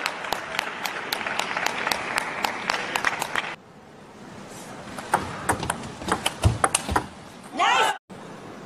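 Arena crowd cheering and applauding with rapid rhythmic clapping, about four claps a second, which cuts off suddenly. Then a quieter hall with the light ticks of a table tennis ball being bounced and struck, and a couple of low thuds.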